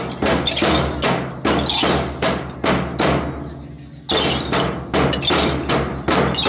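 A large group of drill dumbbells struck together in unison, a sharp clack about two to three times a second with a pause of about a second midway. A steady low musical drone runs underneath.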